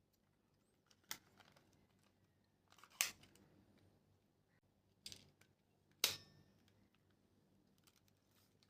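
Plastic toy guns clicking: four sharp, short clicks, the second and fourth loudest.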